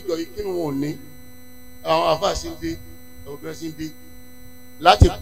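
Steady electrical mains hum from a public-address system, with short phrases of a man's voice through the microphone between pauses.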